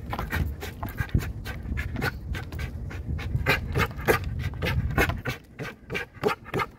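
Belgian Malinois panting hard and fast in quick, even breaths, about five a second, worked up while being urged to attack during protection agitation.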